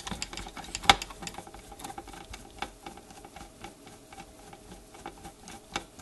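A screwdriver backing a small screw out of a door chime's motor mount: a run of light, irregular clicks and ticks, with one sharper click about a second in.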